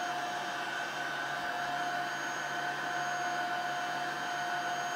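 Tineco Floor One S7 Steam cordless wet-dry floor cleaner running in steam mode: a steady motor whir with a steady high whine through it.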